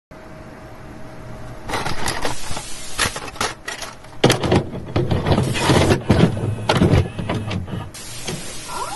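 Glitch sound effects: a faint steady hum, then crackling bursts of distorted static that cut in and out abruptly, starting about two seconds in and getting louder from about four seconds.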